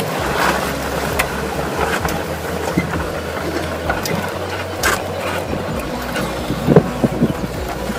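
Golf cart driving along, a steady low rumble with wind on the microphone and a couple of sharp clicks.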